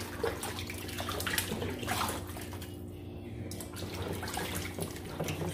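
Water splashing and sloshing in a plastic basin as raw goat meat is washed by hand, with a short lull in the middle.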